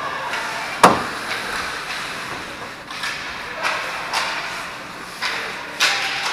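Ice hockey play at the rink boards: one sharp, loud bang against the boards about a second in, then several shorter scrapes and clacks of skates and sticks on the ice over arena hubbub.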